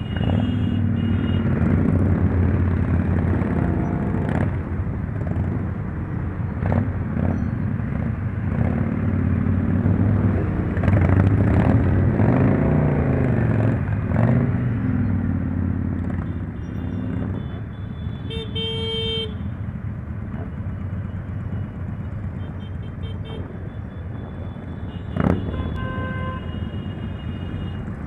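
Motorcycles riding in a large group: a steady engine drone with revs rising and falling through the middle, and horns tooting briefly, once about two-thirds of the way in and once more shortly after.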